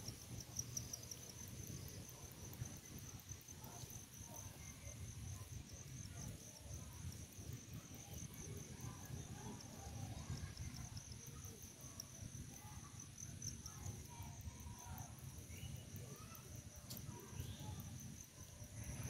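Insects chirping steadily in a high, fast pulsing trill, over a low rumble.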